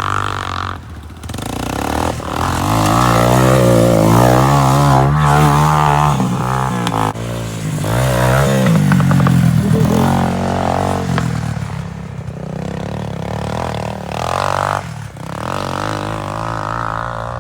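ATV engine revving up and down over and over as a rider works the throttle, its pitch rising and falling with several loud surges.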